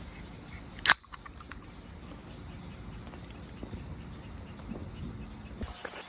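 A single sharp crack about a second in, then faint outdoor ambience with a few small clicks and ticks.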